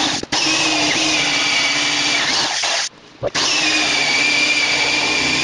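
Corded electric drill running at speed with a hole saw cutting through a wood cabinet panel, a steady whine over the grinding of the cut. It stops for a moment about three seconds in, then starts again; the saw is nearly through the panel and its tip is scorched and hot.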